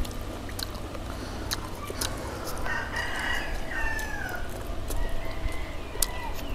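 A rooster crowing about three seconds in, the call falling in pitch at its end, with a fainter call near the end and scattered short clicks.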